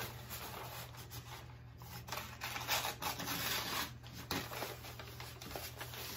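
Scissors cutting through kraft paper from a roll, in irregular rasping strokes mixed with the rustle of the stiff paper being handled.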